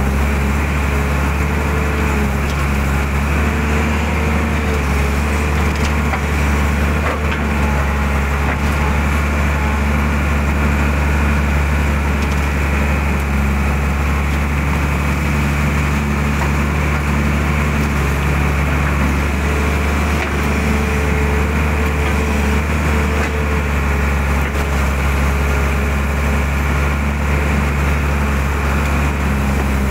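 Mitsubishi hydraulic excavator's diesel engine running steadily under load as the arm digs mud out of a ditch, a low hum with a higher tone that rises and falls as the arm works, and a few faint knocks.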